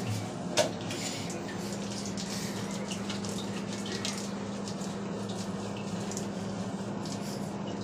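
Water running steadily, as from a tap, with a steady low hum underneath and a short knock about half a second in.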